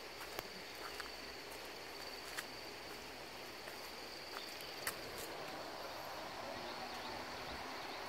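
An insect trills on a single unbroken high note in the forest, over a soft background hiss, with a few sharp clicks scattered through.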